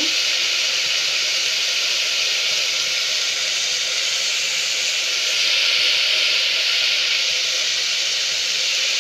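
Sliced onions frying in hot mustard oil in an aluminium pressure cooker: a steady sizzle that grows a little louder about five and a half seconds in.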